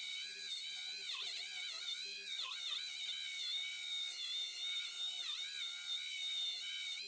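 Electric polishing wheel running with a steady high whine while a steel hammer is buffed on it with black cutting compound. The pitch dips briefly a few times as the wheel is loaded.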